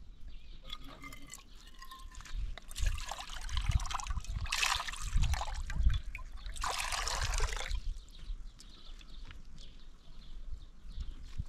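Water being poured or splashed in three spells of about a second each, over faint low thuds.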